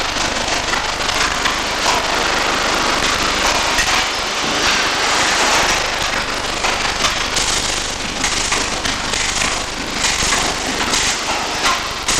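Electric arc welding: a steady, dense crackle and sizzle from the arc.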